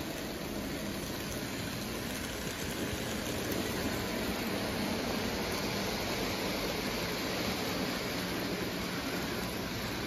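O gauge model trains running on three-rail tinplate track: a steady rolling noise with no clear rhythm.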